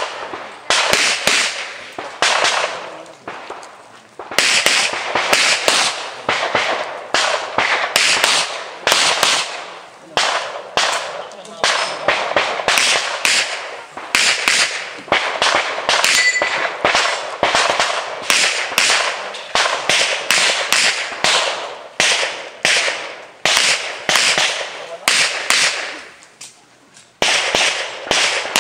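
Pistol shots fired in quick strings, many cracks close together, each with a short echo off the range, with a lull about three to four seconds in and another near the end.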